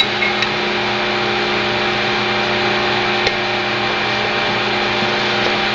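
Steady machine hum with an even whooshing noise, like an electric motor or fan running, with a few faint light clicks.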